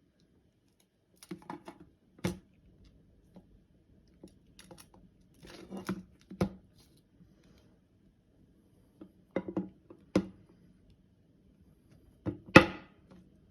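Irregular clicks and short rustles in small clusters a few seconds apart, the loudest near the end, with no ringtone yet.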